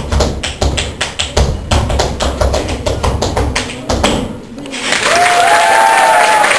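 Tap shoes striking the floor in quick rhythmic strikes over flamenco music, which stop about four seconds in. After a short lull, audience applause with a voice or two cheering sets in.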